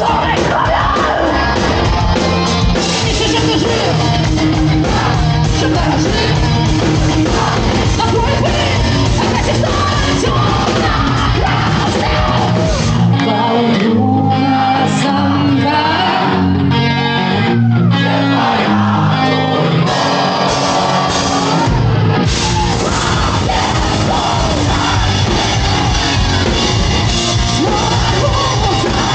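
Loud live heavy rock band playing with a singer's yelled vocals, heard in a large hall. About halfway through, the drums drop out for several seconds, leaving stepped chords, then the full band comes back in.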